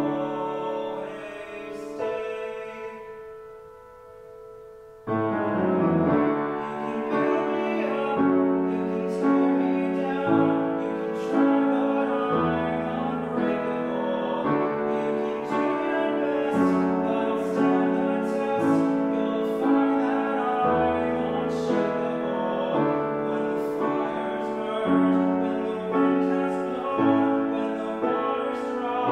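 Solo grand piano: a held chord fades away for a few seconds, then about five seconds in the playing comes back loud, with full chords over deep bass notes in a steady rhythm.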